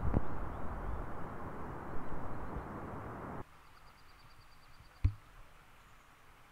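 Steady outdoor rushing noise with a thump at the start. It cuts off abruptly about three and a half seconds in, dropping to near silence with faint rapid high ticking and a single sharp click about five seconds in.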